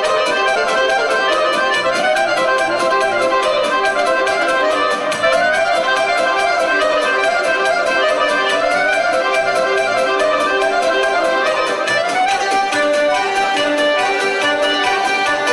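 Balkan folk dance music for a kolo, with an accordion leading a quick winding melody over a steady, even beat.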